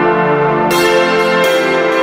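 Background music of sustained bell-like and organ-like tones, with new chords struck twice.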